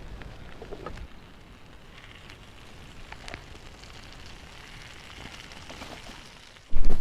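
Campfire crackling, with scattered sharp pops over a steady hiss. Just before the end a sudden much louder low rumble cuts in.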